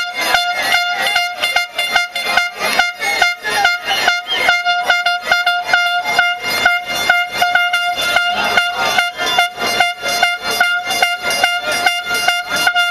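A horn sounding one steady, unbroken high note, over a fast regular beat of about four strokes a second.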